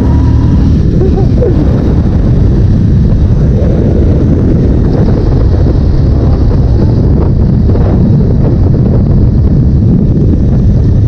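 Wind rushing over an action camera's microphone on a moving motorcycle, with the bike's engine running steadily underneath.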